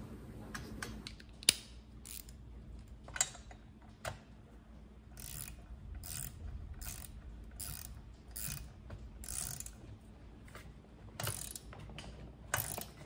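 Hand ratchet wrench clicking in short strokes, roughly one click every half second through the middle, with a few sharper ticks: tightening a plug into the decompression-valve port of the Husqvarna 372 XP's new cylinder.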